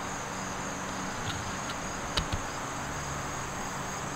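Steady high-pitched buzz of an insect chorus, with two light clicks a little past two seconds in.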